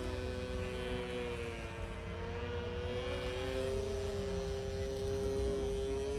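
Radio-controlled model boats' electric motors whining steadily, two tones that dip slightly in pitch about a second and a half in and then rise again, over a low rumble.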